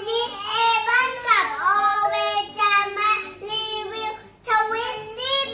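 A young child singing in a high voice, with long held notes that slide up and down and a brief pause about four seconds in.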